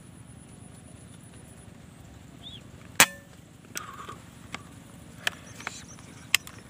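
A single sharp air-rifle shot about three seconds in, followed by several lighter clicks and knocks.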